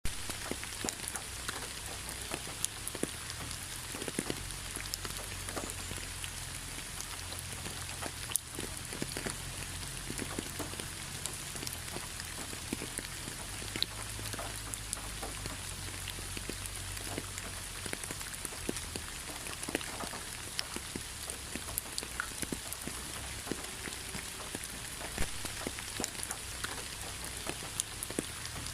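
Heavy rain falling steadily, a constant hiss of rainfall with many individual drops ticking and splashing on surfaces, over a low rumble.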